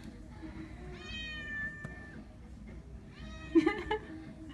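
A cat meowing twice: one long, fairly steady meow about a second in, and a louder, wavering meow near the end.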